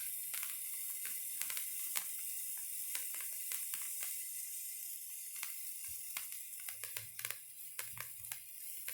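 Patriot stick sparkler firework burning: a steady hiss of spitting sparks with frequent sharp crackles.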